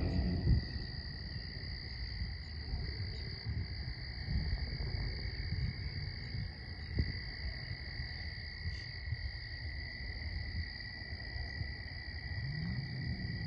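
A steady chorus of calling frogs, an unbroken high trill, over a low rumble.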